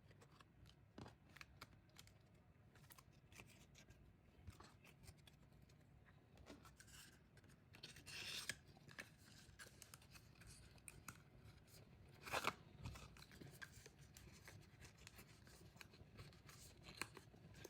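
Faint rustling and small clicks of photocards and their plastic packaging being handled, with a louder spell of rustling about eight seconds in and a sharper crackle or snip about twelve seconds in.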